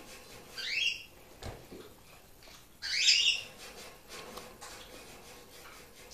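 Pet bird giving two short chirping calls that sweep upward in pitch, about two seconds apart, the second louder.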